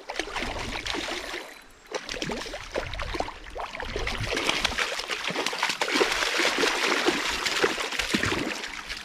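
A hooked trout thrashing and splashing at the surface of a shallow stream, over the running water. The splashing eases briefly about two seconds in, then grows heavier through the second half.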